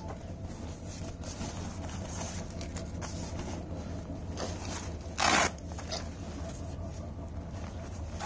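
Hands handling a laptop backpack, rubbing and shifting its nylon lining and strap with faint rustles, and one short, loud scrape about five seconds in. A steady low hum lies underneath.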